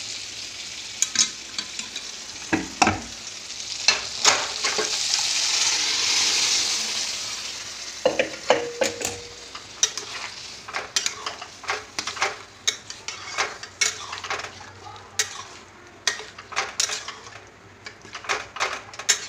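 Boiled mixed dal poured into a hot metal kadai of fried tomato masala, sizzling in a hiss that swells to its loudest about six seconds in and then dies down. After that, a metal spatula stirring the dal, knocking and scraping against the kadai in quick clicks.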